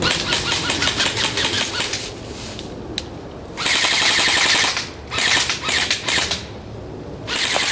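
Airsoft gun firing rapid full-auto bursts, a run of fast even clicks, then a single shot and three more bursts.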